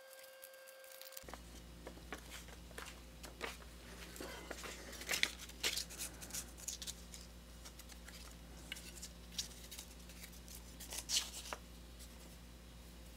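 Paper template being handled and folded: soft rustling and crinkling of paper with scattered light clicks, busiest in two short spells near the middle and near the end. A faint steady low hum sits underneath from about a second in.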